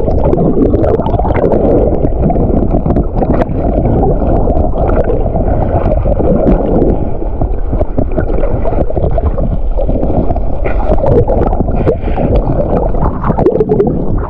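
Lake water sloshing and gurgling around a GoPro Hero 10 held just under the surface, heard through the submerged camera: a loud, muffled churning with many small clicks.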